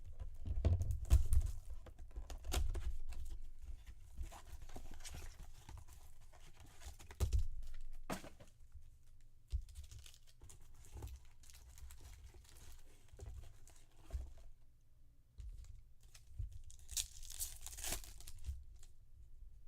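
Trading card packaging being torn open, with crinkling wrappers and the clicks and rustles of cards being handled. A louder, hissy tear comes near the end.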